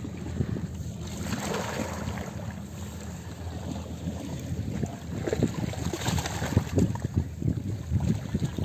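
Wind rumbling on the microphone in uneven gusts, over a faint low hum that fades after the first few seconds.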